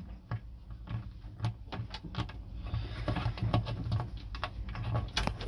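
Light, irregular clicks and taps of a small metal toggle switch with brass screw terminals being handled on a hard work surface.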